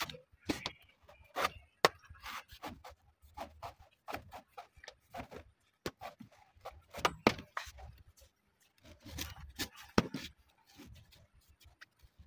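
Large knife slicing and shaving the husk off a young coconut: an irregular run of short cuts and scrapes, with a few sharper clicks among them.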